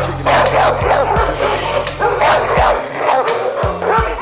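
Several dogs barking and yapping over and over in quick succession, with background music underneath.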